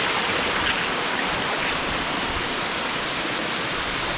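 Snowmelt water rushing steadily, sheeting down a granite gully and running through a tunnel under avalanche snow.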